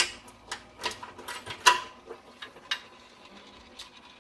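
Metallic clicks and clanks of a network equipment cabinet being unlocked and opened: several sharp knocks from the latch and door in the first two seconds, the loudest near two seconds in, then a few fainter clicks.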